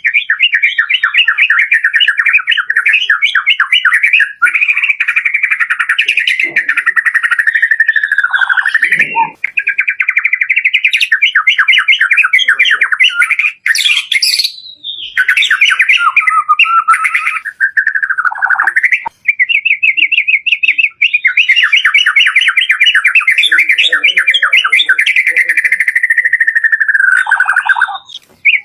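White-rumped shama singing a long, varied song: fast runs of rapidly repeated notes and trills, with a few sliding whistles between phrases and brief pauses.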